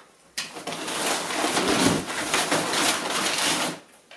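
Packaging being handled, rustling and crinkling for about three seconds.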